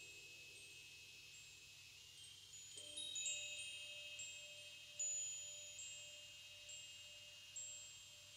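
Faint chime tones ringing on and overlapping, with a fresh note struck every second or two; a steady lower tone joins about three seconds in.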